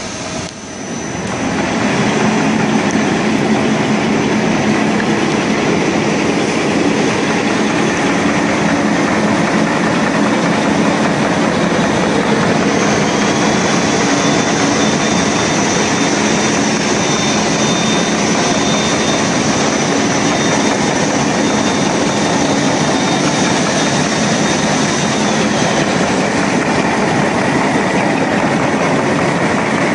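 Automatic wet-wipe folding and packing machine running at production speed: a loud, dense, steady mechanical clatter. A thin high whine joins in about twelve seconds in and stops a few seconds before the end.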